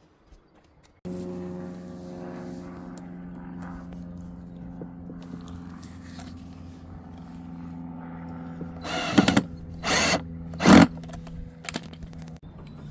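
An electric motor switches on about a second in and runs with a steady hum, stopping shortly before the end. Three loud, short rushing blasts break in near the end.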